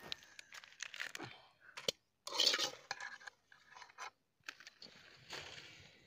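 A metal kadai (wok) being handled and set down on a stone hearth: scattered knocks and clinks of metal against rock, with a short scraping rush about two and a half seconds in.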